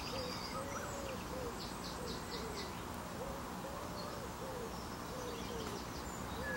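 Wood pigeon cooing: two phrases of five low coos each, the second coo of each phrase held longer than the rest.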